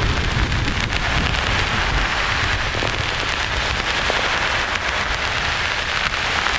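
Steady white-noise hiss, with a low rumble of thunder fading out over the first couple of seconds.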